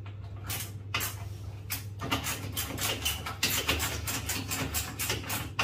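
A quick run of clicks, taps and rattles of things being handled, starting about two seconds in, over a steady low hum.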